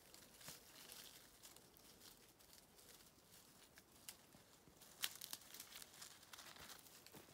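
Faint, irregular rustling and crackling of dry leaves and undergrowth as a kitten and a dog move through ivy and holly, with one sharper crack about five seconds in.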